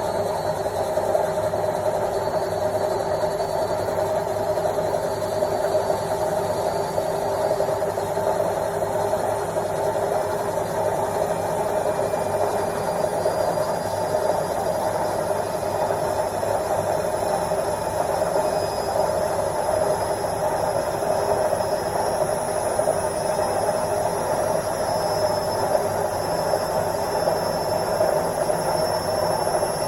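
Washing machine in its final spin, the drum spinning fast with a steady, loud drone and a faint high whine.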